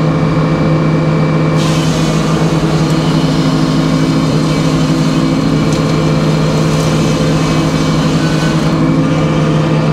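Circular sawmill running steadily, its large circular blade sawing a slab off the side of a hard maple log to flatten it. The blade is in the cut from about a second and a half in until near the end, adding a higher-pitched cutting noise over the steady hum of the mill.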